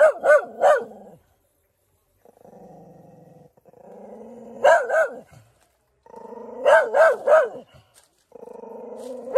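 A dog growling and barking: short runs of two or three barks, each run after the first preceded by about a second of low growl, repeating four times.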